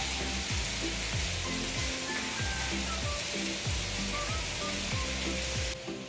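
Splash-pad water jets and fountains spraying in a steady hiss, over background music with a steady beat. The spray cuts off abruptly near the end while the music carries on.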